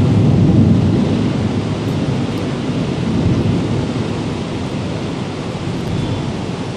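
Thunder rumbling low, loudest in the first second and slowly dying away, over the steady hiss of rain.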